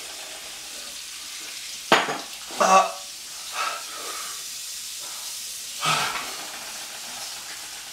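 A handful of short gasps, sharp breaths and pained vocal sounds from people whose mouths are burning from hot sauce, over a steady background hiss.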